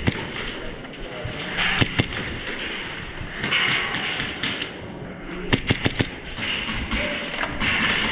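Airsoft gunfire in an indoor field: single sharp pops at the start and about two seconds in, then a quick string of about six shots about five and a half seconds in, over shuffling movement noise.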